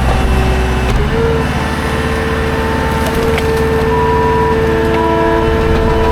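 Skid steer engine running under load with a steady whine whose pitch steps up about a second in, while wood knocks and clatters in the grapple.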